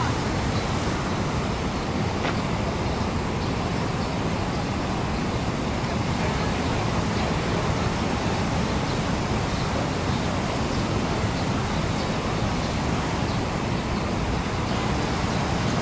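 Steady rushing noise of fast-flowing river water, the Terek, even and unbroken.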